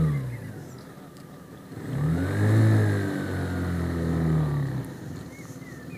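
Small engine of a motorized cargo bike revving up under throttle about two seconds in, rising in pitch, holding for about three seconds, then easing off.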